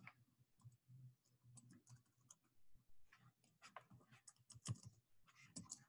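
Faint computer keyboard keystrokes, a scattered run of short clicks as a number is typed in.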